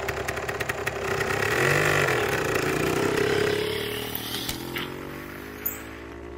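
Small electric dirt bike's motor whining as it pulls away, with a rattle of rapid clicks at first and a rise and fall in pitch as it speeds up. The sound fades from about two-thirds of the way in as the bike rides off.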